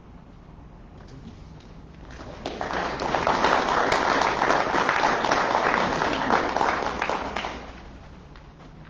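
Audience applauding, swelling in about two and a half seconds in and dying away near the end.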